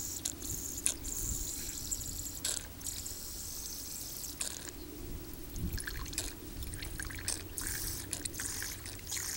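Liquid fuel squeezed from a plastic bottle into a small spirit (alcohol) burner, trickling and dripping, with scattered light clicks.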